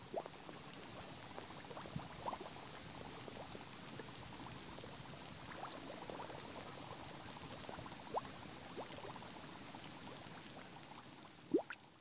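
Air bubbles escaping dry riverbed sand as the water's advancing edge soaks into it: a steady fine fizzing and crackling, with scattered small pops, some rising in pitch, the clearest one near the end.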